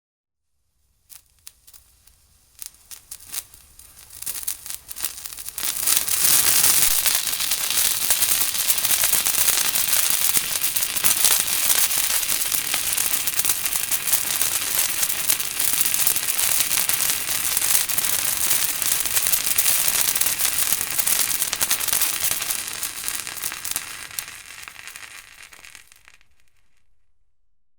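Fireworks crackling: a few scattered sharp pops at first, building over about five seconds into a dense, continuous crackle that holds steady, then thins and fades out near the end.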